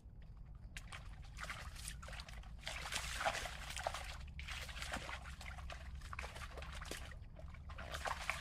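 Water trickling and sloshing in several spells of a second or two each.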